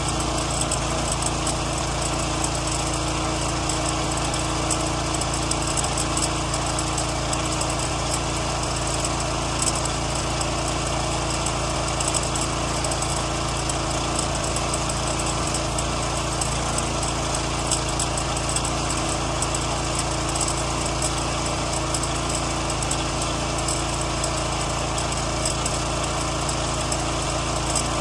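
Pressure washer's small engine running steadily, with the hiss of the high-pressure water jet spraying against vinyl siding.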